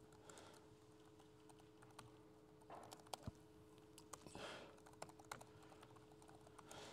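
Faint typing on a laptop keyboard: scattered, irregular keystrokes with short gaps between them.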